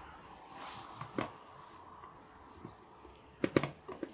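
A few light clicks and knocks of food being handled: shallot pieces are set into a metal roasting pan among the vegetables. One knock comes about a second in and a quick cluster about three and a half seconds in.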